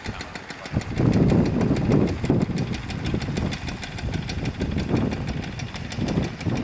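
A small moped engine running, louder and rougher from about a second in, over a steady fine ticking.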